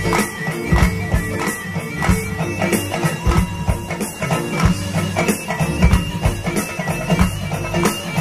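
Live band playing an instrumental passage of Arabic pop: keyboards, strings and guitar carry a reedy melody over a steady beat of hand-drum hits.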